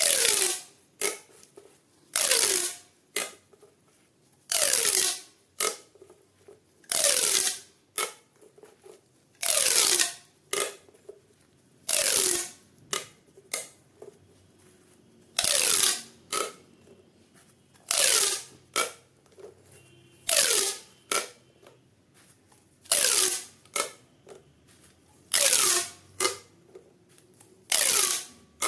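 Plastic pop tube toys being stretched and squeezed over and over, each pull giving a short whooshing pop with a falling tone. These come about every two and a half seconds, with small plastic clicks in between.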